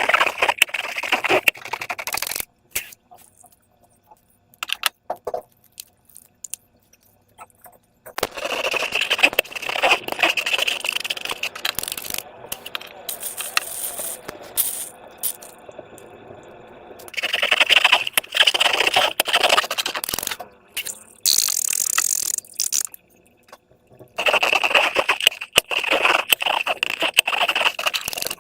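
Hands working slime and transparent balloons, making crackly scraping sounds full of small clicks in bouts of a few seconds, with quieter pauses in between.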